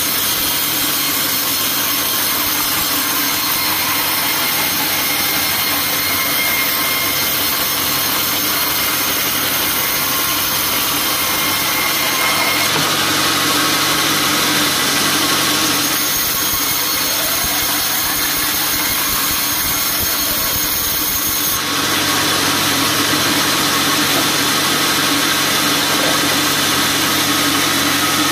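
Band sawmill running steadily, its blade sawing through a teak log into boards. The machine noise is a constant hum under a dense hiss, and its character changes for a few seconds about two-thirds of the way through.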